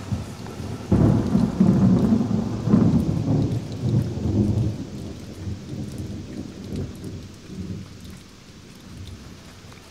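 Thunder rumbling with rain: a sudden loud peal about a second in, a second swell a couple of seconds later, then rolling off and fading.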